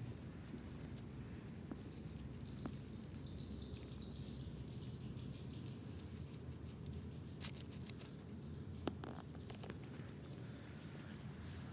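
A squirrel scrabbling and pattering in leaf litter as it buries a nut, with scattered light clicks and two sharper ticks in the second half.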